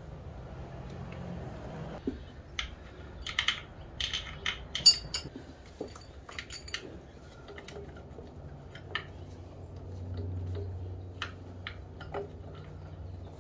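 Irregular metallic clinks and taps of hand tools and metal parts while a power steering pressure line and pump are refitted. The clinks bunch up about four to five seconds in, where the loudest falls, then thin out to scattered taps.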